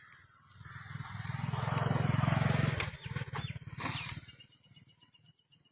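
A motor vehicle's engine passing close by, with a low pulsing note. It grows louder to a peak about two seconds in, then fades away.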